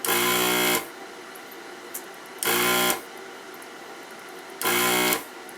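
Electric desoldering tool's vacuum pump buzzing in three short bursts, each about half a second long and a couple of seconds apart, as the trigger is pressed to suck solder from the board's pin holes.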